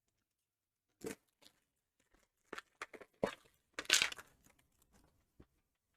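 Trading card packaging being torn and crinkled open by hand: a run of short rips starting about a second in, the loudest near four seconds in.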